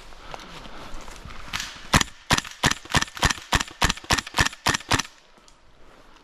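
Airsoft gun firing a quick string of about eleven single shots, three or four a second, each a sharp crack.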